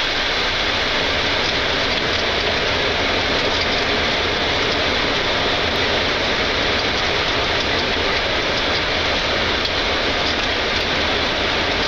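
Boeing 747-8 freighter's four GEnx engines in reverse thrust during the landing rollout, heard as a loud, steady rushing noise as the aircraft decelerates on the runway.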